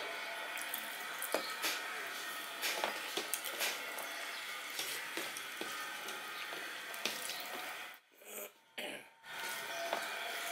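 Fingers mixing rice and fish curry on a stainless steel plate: small wet squishes and light scrapes and clicks against the metal, over a steady hiss. The sound drops out for about a second around eight seconds in.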